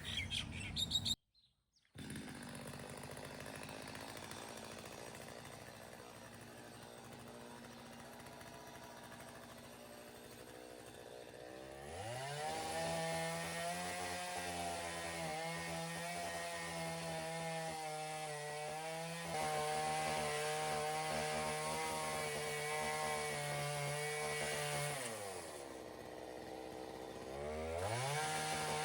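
Chainsaw idling quietly, then revving up at about twelve seconds and held at high speed for roughly thirteen seconds with small dips in pitch as it cuts a branch, before dropping back to idle and revving up again near the end.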